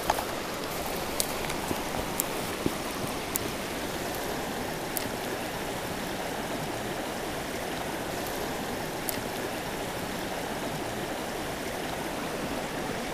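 Small rocky stream rushing steadily over stones, with a few brief sharp clicks scattered through it.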